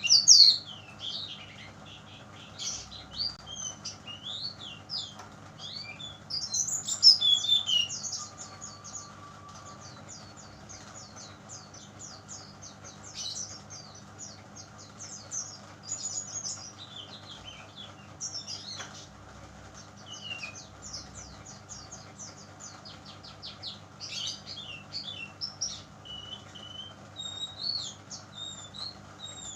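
Juvenile brown-chested jungle flycatcher singing: a busy run of high chirps, whistled glides and rapid trills, with louder phrases near the start and about seven seconds in. A faint steady hum runs underneath.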